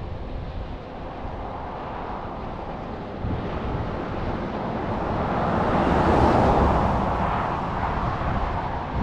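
John Deere 9500 combine, with its six-cylinder turbocharged diesel, running as it harvests corn: a steady mechanical rush of engine and threshing that grows louder to a peak past the middle and then eases off.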